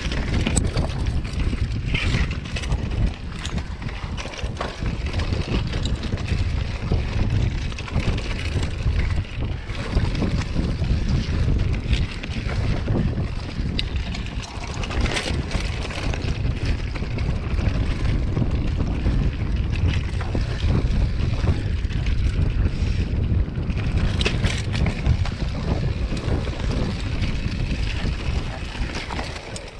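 Wind rumbling on an action camera's microphone as a hardtail mountain bike descends a rocky dirt trail, with constant rattling and knocking from the bike and its tyres over stones and roots.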